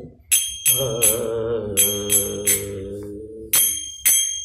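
A man's singing voice holding the last note of a Kannada devotional song with a slight waver, over small metal hand cymbals struck in a steady rhythm. The voice stops about three and a half seconds in, and the cymbals ring out with a few final strikes.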